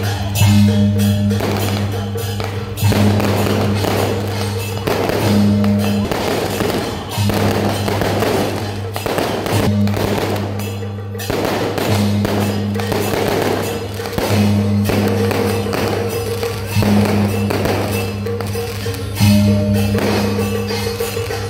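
Temple procession music with a repeating, pulsing low tone, while a string of firecrackers crackles densely over it for much of the first half.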